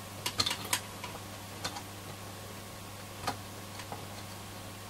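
Small, irregular clicks and ticks as the metal legs of a desoldered transistor-radio module are bent straight by hand, a cluster of them in the first second and a few scattered after, over a faint steady hum.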